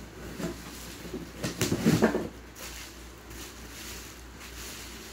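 Plastic wrapping and cardboard rustling as a wrapped pan is lifted out of its box, in a cluster of crinkles and light knocks about one and a half to two seconds in.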